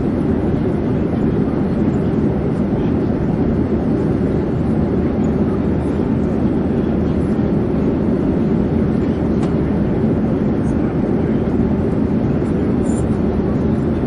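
Airplane in flight: a steady, unchanging low drone.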